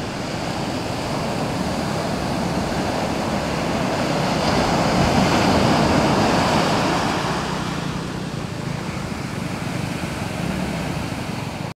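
Ocean surf washing up the beach over wet sand, a steady rush of water and foam that swells about halfway through and then eases off.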